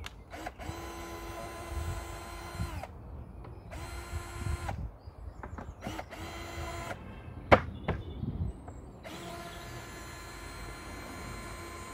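An 18-volt cordless drill driver backing out decking screws in four runs. Each run spins up and then holds a steady whine. There are short pauses between the runs, and one sharp knock comes about seven and a half seconds in.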